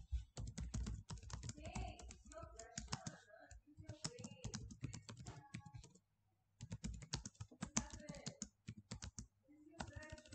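Typing on a computer keyboard: quick runs of keystrokes, with a short pause about six seconds in.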